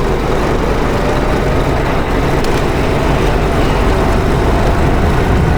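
Go-kart engine running at speed under heavy wind and road noise, its faint note easing slightly down in pitch.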